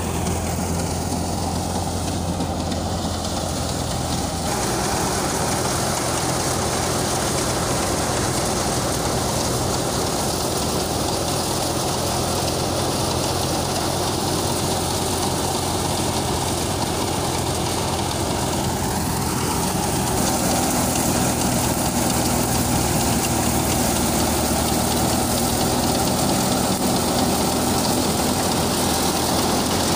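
Belt-driven crop thresher running steadily along with its drive engine as bundles of cut crop are fed into it.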